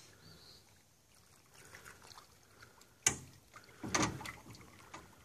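Aluminium boat hull knocked and water sloshing against it as a man wading beside it grabs its side: a sharp knock about three seconds in, then a louder knocking and slosh about a second later.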